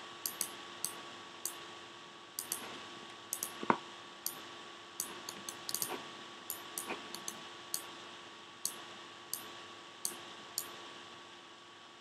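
Computer mouse clicking irregularly, about two dozen sharp clicks with a quick run of them around the middle and one louder knock about four seconds in, over a faint steady hum.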